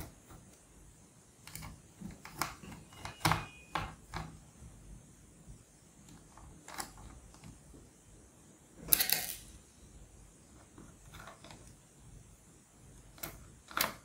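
Small screwdriver working the hard-drive screws in a laptop's plastic chassis: a scatter of light clicks and scrapes, with one louder, longer rattle about nine seconds in.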